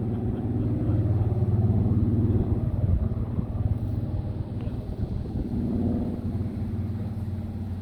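Rolls-Royce Griffon V12 engine of a Supermarine Spitfire Mk XIV in flight, a steady deep drone that eases off slightly near the end.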